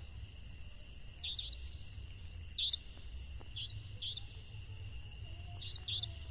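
Night crickets trilling steadily, with short high chirps every second or so and a low rumble underneath.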